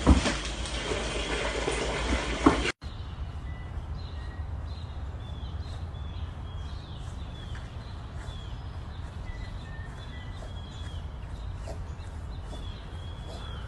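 A louder noisy stretch opening with a sharp knock, then, from about three seconds in, small birds chirping again and again over a low steady rumble outdoors.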